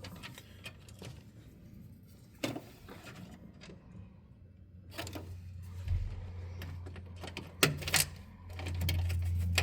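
A plastic spacer and screw being fitted by hand at the corner of a circuit board: a few scattered small clicks and taps over a low steady hum that grows louder near the end.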